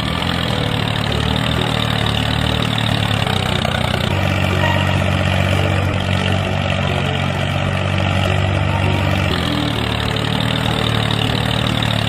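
Miniature model tractor running steadily, an engine-like drone with a low hum.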